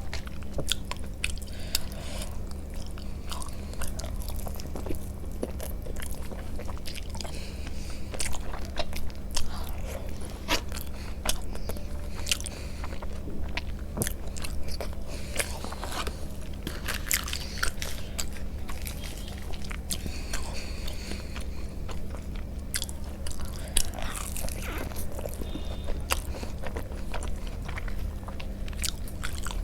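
A person eating, chewing and biting food with many short, irregular wet mouth clicks, over a steady low hum.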